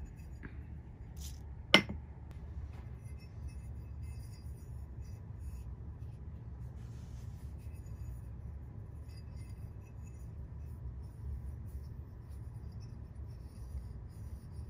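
Low steady hum with a single sharp metallic clink about two seconds in, from a cut aluminium plate being handled, and faint small handling noises.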